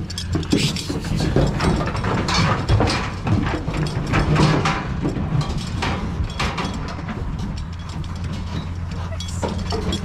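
A livestock truck's engine idling with a steady low hum, under irregular knocks and rattles from the lambs shifting in its slatted aluminium stock crate.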